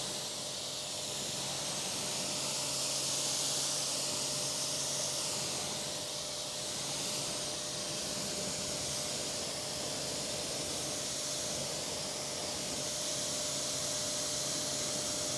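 Kranzle 1152 TST pressure washer's jet spraying onto a car wheel and tyre, rinsing off wheel cleaner. It makes a continuous, steady hiss with a faint low hum underneath.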